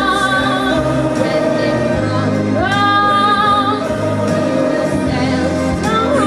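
A girl singing solo into a microphone over a steady accompaniment, holding long notes with vibrato: one at the start and another about two and a half seconds in, with a rising phrase near the end.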